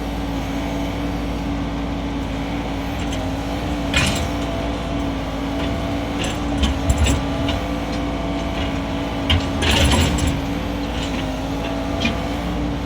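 Mini excavator engine running steadily, with a few sharp knocks and clanks about four, seven and ten seconds in.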